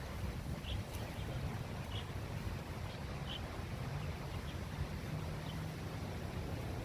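Strong wind rumbling on the microphone. Three faint short high chirps sound about a second and a bit apart.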